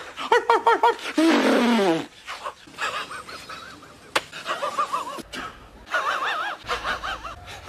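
A man's wheezing laugh in several short bouts: rapid high-pitched pulses, with one long wheeze that slides down in pitch about a second in. A sharp click comes in the middle.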